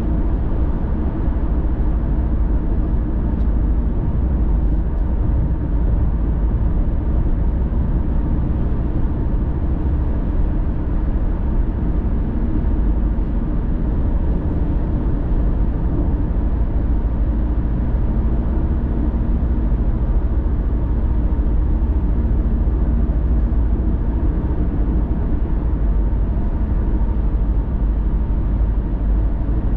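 Car driving along a highway: a steady low rumble of tyres, engine and wind that holds even throughout.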